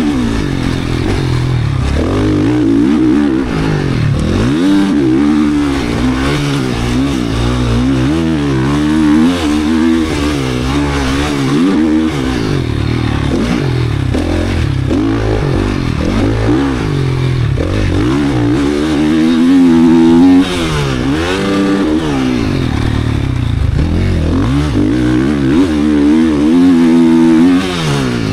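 Race-built single-cylinder four-stroke engine of a GasGas 450 motocross bike ridden hard, revving up and dropping off again and again through the gears and on and off the throttle.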